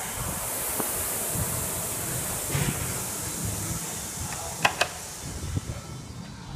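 Concept2 rowing machine's fan flywheel whooshing as the row finishes, its air noise dying away over the last couple of seconds. Two sharp clicks come about two-thirds of the way through.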